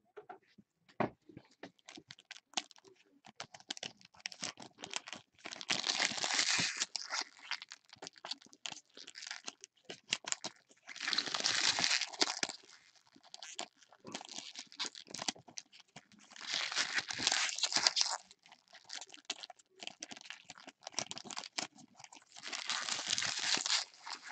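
Foil trading-card pack wrappers crinkling and tearing as packs are opened and handled, in four longer bursts a few seconds apart, between short clicks and snaps of cards being handled.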